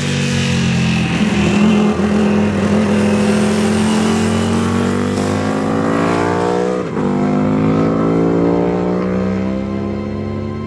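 Britten V1000's V-twin race engine pulling hard on track, its pitch climbing steadily. About seven seconds in the note drops sharply for a moment, then climbs again before fading near the end.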